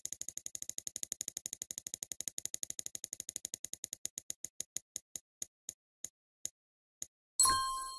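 Spinning-wheel sound effect: rapid ticks that slow steadily until the wheel stops, then a bright chime about seven and a half seconds in marks the pick, louder than the ticks.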